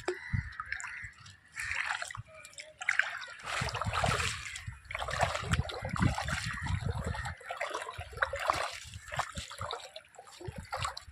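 Shallow seawater sloshing, trickling and splashing in an irregular way as someone moves through it and handles a fishing net.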